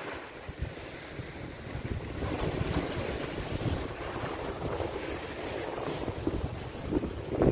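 Wind buffeting the microphone in gusts, over the wash of sea waves on a rocky shore; the wind gets louder about two seconds in.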